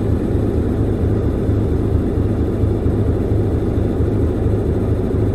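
A 56 Carver Voyager's twin inboard engines idling after a start, heard from the boat's pilot house: a steady, even low rumble.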